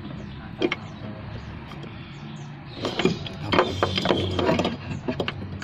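Hands handling a new spin-on oil filter canister while wiping used oil onto its rubber O-ring: a couple of clicks, then a stretch of rustling and scraping handling noise about three seconds in.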